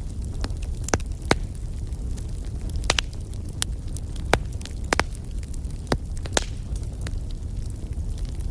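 Wood fire burning: a steady low rumble with sharp crackles and pops, irregular, several a second at times, a few of them louder snaps.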